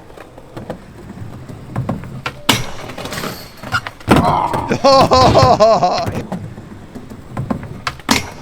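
Skateboard riding: wheels rolling, and the board knocking and clacking on the obstacles. A loud scraping rush comes about two and a half seconds in, then a loud, wavering pitched squeal from about four to six seconds in.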